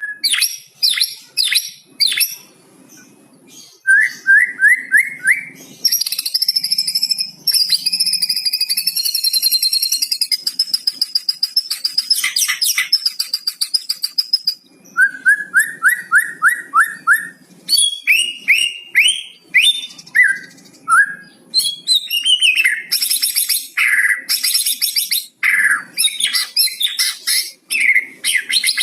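White-rumped shama (murai batu) singing a loud, varied song: runs of quick rising whistled notes, long high buzzy trills and sharp chirps, one phrase straight after another. The song carries the cucak cungkok mimicry that keepers value.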